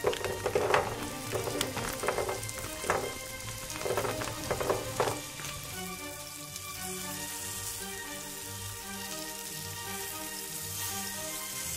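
Rice cake sticks dropping into a frying pan of chicken pieces, about half a dozen soft thuds over the first five seconds, then steady sizzling as the chicken fries.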